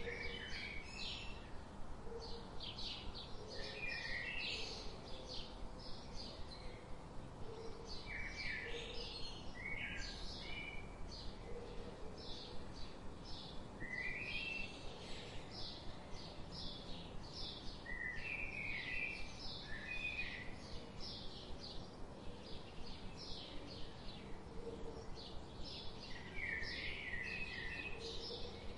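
Forest birdsong ambience: rapid high chirps repeat several times a second throughout, and a short, lower song phrase breaks in every four or five seconds, over a soft steady background hiss.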